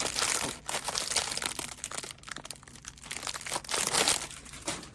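Plastic wrapping crinkling and rustling in irregular bursts as it is handled, loudest near the start and again near the end.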